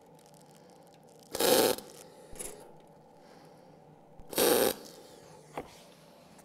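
Two MIG tack welds on a sheet-metal panel with an Eastwood MIG 175 welder: each a short burst of arc crackle lasting about half a second, about three seconds apart.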